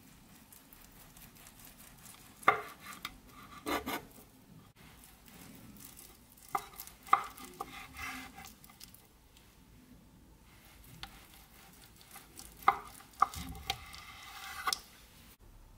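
Chef's knife slicing through a soft spinach egg roll and knocking down onto a wooden cutting board: three rounds of cutting, each ending in a few sharp knocks of the blade on the board.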